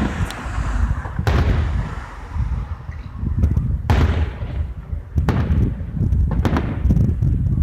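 Fireworks display: aerial shells bursting in a series of about five sharp booms, each trailing off into a rolling echo, over a continuous low rumble.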